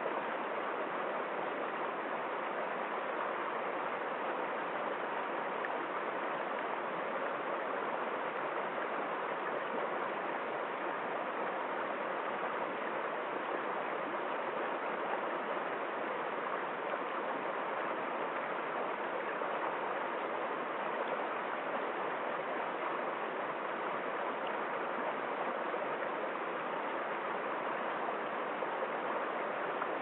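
Shallow rocky stream flowing and splashing over stones in small cascades, a steady, even rush of water.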